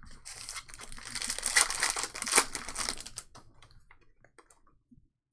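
Foil trading-card pack wrapper being torn open and crinkled, a dense crackling that lasts about three seconds and then gives way to a few faint clicks of card handling.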